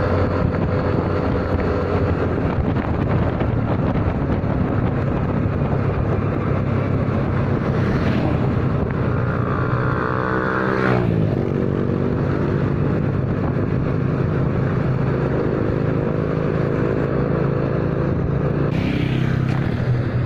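Yamaha motor scooter running at a steady speed while being ridden, with wind on the microphone. About ten seconds in, an engine's pitch falls steeply for a couple of seconds.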